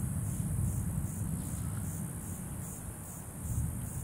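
A chorus of evening insects trilling in a steady, evenly pulsing high-pitched hum, over a low rumble that slowly fades.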